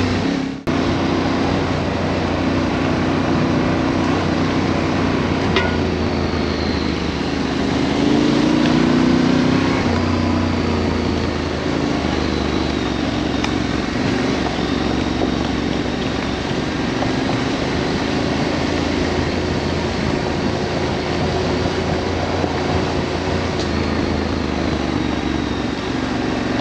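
Adventure motorcycle engine running under way on a dirt track, its pitch rising and falling with the throttle, over a steady rush of wind and road noise. The sound drops out briefly about half a second in.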